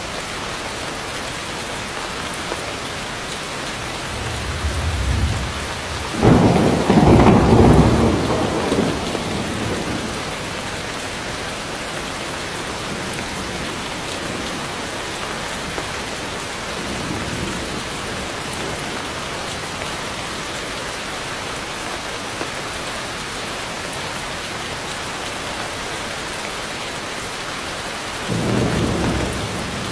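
Heavy rain falling steadily on forest foliage, with rolling thunder: a rumble builds about four seconds in to a loud peal that lasts a few seconds, a faint rumble follows midway, and a shorter rumble comes near the end.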